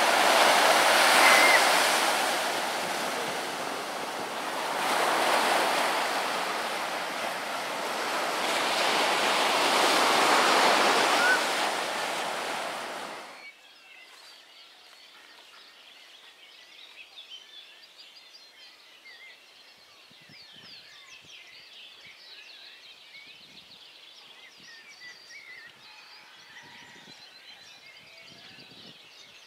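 Ocean surf breaking on a dark sand beach, loud, in three successive waves rushing up the shore. About halfway through it cuts off abruptly to a quiet outdoor background with faint, scattered high chirping.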